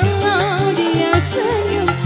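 Female singer singing a dangdut song live into a microphone, with a wavering melody line. She is backed by an electronic keyboard dangdut band with bass and an even drum beat.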